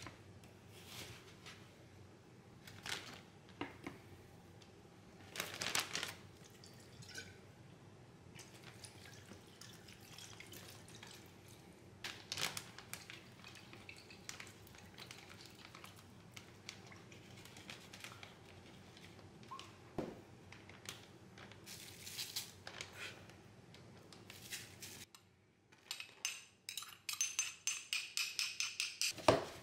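Quiet kitchen prep sounds: a knife cutting raw beef on a plastic cutting board, soy sauce poured into a plastic zip-top bag, and a measuring spoon adding minced garlic. Near the end comes a quick run of sharp clicks, about eight a second.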